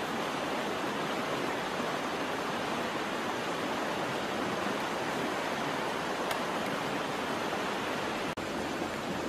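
Steady, even rushing noise that holds at one level throughout, broken by a momentary dropout near the end.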